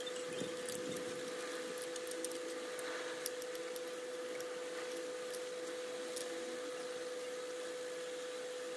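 Steady background hum with a few faint, light metallic clicks from a hand tool being worked at a fitting on the motorcycle's clutch cover.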